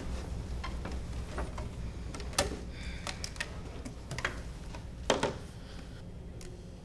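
Scattered light clicks and knocks of people settling into chairs at a table and handling things in a small room, with two louder knocks about two and a half and five seconds in, over a steady low room hum.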